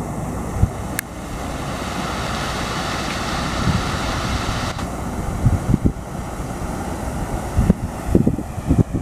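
Wind buffeting the microphone in uneven low gusts over the steady rush of a fountain's water jets spraying and splashing. The rushing fades about five seconds in, leaving mostly wind. One sharp click comes about a second in.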